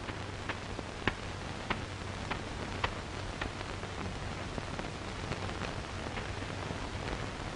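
Steady hiss of an old optical film soundtrack with scattered faint crackles and clicks and a low hum underneath; no dialogue or music.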